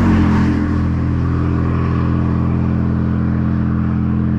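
An engine running steadily at an even, low pitch.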